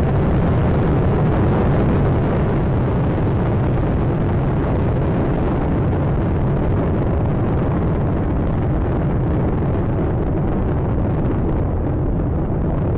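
Space Shuttle Atlantis's rocket motors (two solid rocket boosters and three main engines) during ascent: a steady, loud roar, heaviest in the deep rumble.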